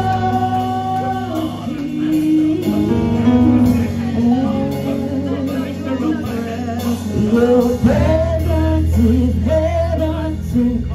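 Live gospel worship music: electronic keyboard playing sustained chords under a singing voice that rises and falls, with the singing strongest in the second half.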